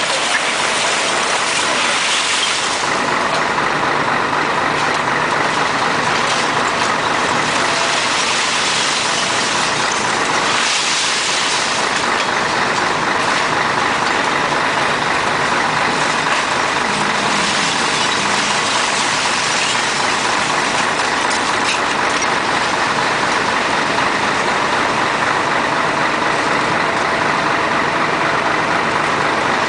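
Construction machine's engine running steadily.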